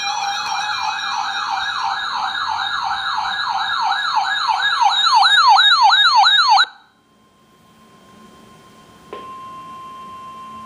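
Weather radio receiver's electronic alert siren, warbling up and down in pitch several times a second; the sweeps grow slower and wider before it cuts off suddenly about six and a half seconds in. After a short lull, a click and a steady single-pitch warning alarm tone start near the end.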